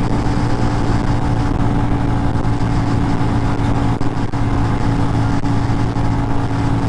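Kawasaki Rouser NS125 FI's 125 cc single-cylinder engine held at full throttle in fifth gear, running at a steady high pitch, heard over rushing wind noise.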